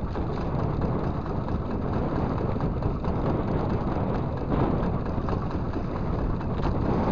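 Wind on the microphone and choppy sea water around a small boat, making a steady rushing noise.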